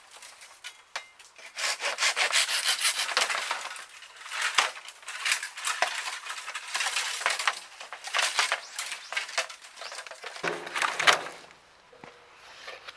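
Hand saw cutting through bamboo in quick, rhythmic strokes, pausing briefly once and stopping about eleven seconds in.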